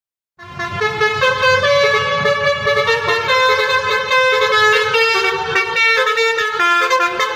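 Telolet horn on a bus: a set of air horns playing a tune of several tones at once, the pitch stepping up and down every fraction of a second, starting about half a second in.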